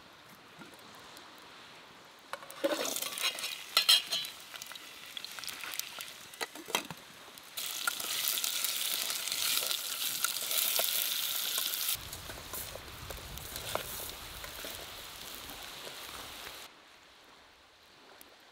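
Food sizzling on a flat rock heated in a campfire, with scraping and clinking as it is stirred. The sizzle is loudest for a few seconds in the middle and cuts off abruptly.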